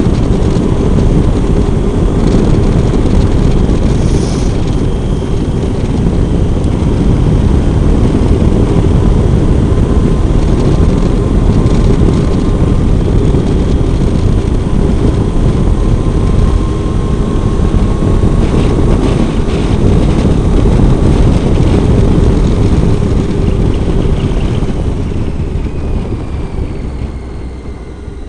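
Triumph Tiger 800 three-cylinder motorcycle riding at road speed, its engine mixed with heavy wind noise buffeting the onboard microphone. The sound eases off over the last few seconds as the bike slows.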